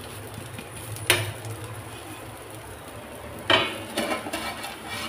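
Cookware being handled on the stove: a spatula working a dosa on its pan, with a sharp clink about a second in, then a clatter about three and a half seconds in as a metal plate lid is handled over a pan.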